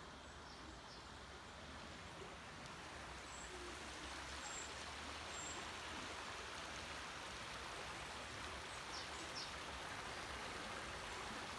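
A shallow stream flowing and rippling over stones, a steady rushing that grows louder a few seconds in.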